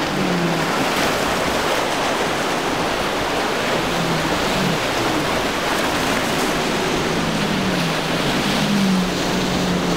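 Rough surf and wind noise, with the faint drone of a center-console boat's triple outboard engines under it. The engine note falls and rises in pitch a few times as the throttle changes while the boat runs through the breaking waves.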